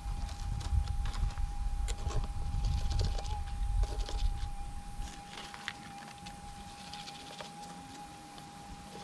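Minelab GPX 6000 metal detector holding a steady threshold hum, with a slight wobble in pitch about three seconds in as the coil passes a very faint target. Scratchy rustling and clicks of the ground being worked run under it, and a low rumble fills the first five seconds before dropping away.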